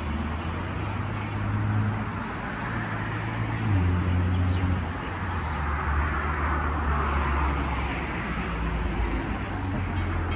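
Road traffic: motor vehicles passing on the road, a steady low engine hum with tyre noise that swells and fades in the middle.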